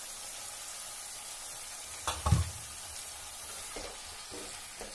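Mixed vegetables sizzling faintly in a non-stick kadai, with one loud knock about two seconds in. Near the end a spatula starts stirring and scraping the vegetables around the pan.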